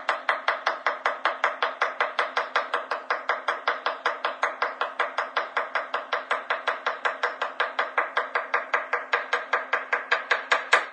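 A rapid, evenly spaced run of sharp knocks, about five a second, over a faint steady hum; it stops abruptly at the end.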